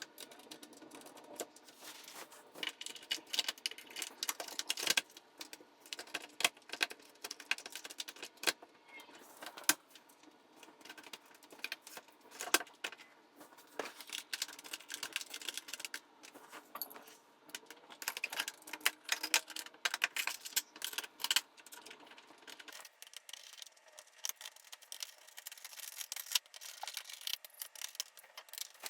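Metal lock hardware clinking and clicking as it is handled: a deadbolt being taken out and a smart deadbolt lock fitted to the door. The clinks come irregularly, in clusters.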